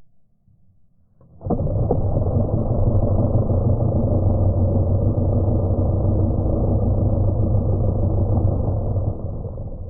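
Electric starter motor from a 60 hp Johnson two-stroke outboard, freshly greased and run off a battery, starting suddenly with a click about a second and a half in and spinning steadily at speed, then winding down near the end.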